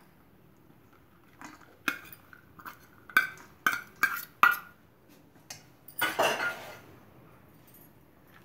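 A steel spoon clinks against steel bowls several times, sharp metallic taps with a short ring, as shredded cabbage is knocked out into a bowl of ground chana dal batter. About six seconds in comes a second-long rustle as the cabbage slides in.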